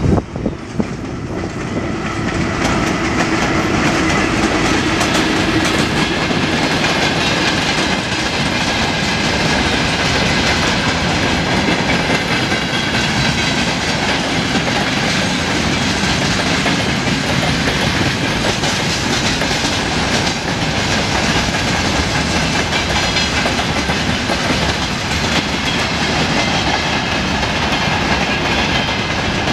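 VL10U electric locomotive passing at the head of a freight train, then its tank cars, boxcars and hoppers rolling by, wheels clacking over the rail joints. The noise builds over the first two or three seconds and then holds steady and loud.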